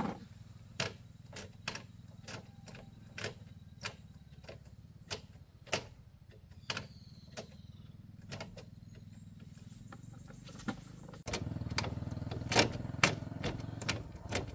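Scattered sharp clicks and knocks, about one or two a second, from hand work with tools on a small motorbike's engine. Under them runs a steady low rumble that steps up suddenly in loudness about eleven seconds in.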